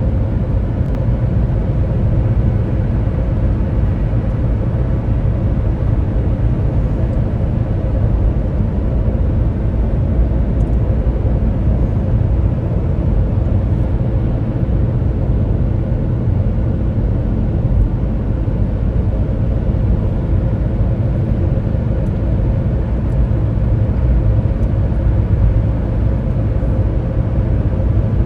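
Steady low rumble of a moving car, with road and engine noise and no sudden events.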